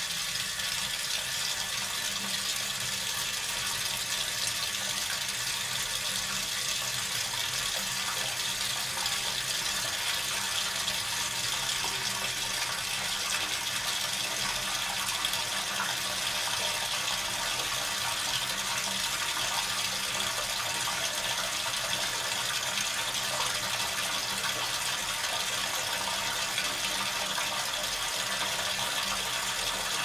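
Bathtub faucet running at a steady flow, the water pouring with an even, unchanging rush.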